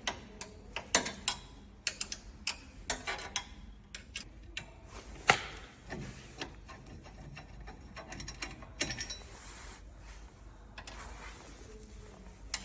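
Irregular metal clicks and clinks of an Allen key turning M4 hex socket screws out of a metal bracket, with one sharper knock about five seconds in.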